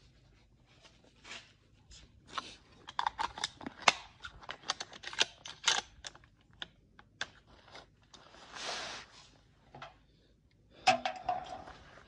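Handling noise from a Mossberg .243 rifle on its rest: a run of small clicks and rattles, a brief rustle near nine seconds in, then another cluster of clicks near the end. No shot is fired.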